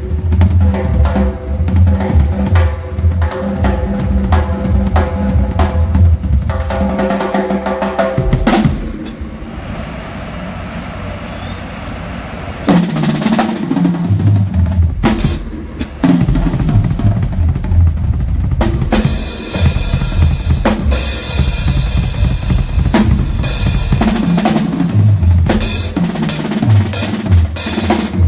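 Drum kit at a band soundcheck, played in fast bass drum and snare patterns with rolls. It drops to a softer passage about eight seconds in, then comes back with heavy hitting and crashing cymbals from about nineteen seconds.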